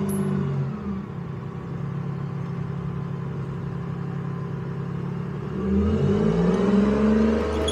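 Engine of an M113-type tracked armoured vehicle running at low revs as it creeps forward, then revving up and getting louder about six seconds in as it pulls away.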